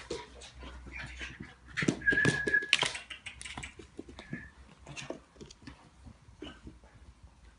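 Chocolate Labrador puppy playing with toys on a rug: scattered knocks, clicks and scrabbling of paws and toys. A high, steady squeal is held for over half a second about two seconds in, and a shorter, fainter one follows about four seconds in.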